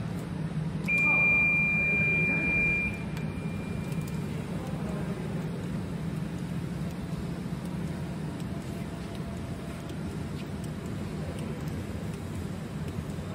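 Mida LI220 RFID label inspection machine running with a steady hum as the label web moves through its rollers. A single high electronic beep sounds from about one second in and lasts about two seconds.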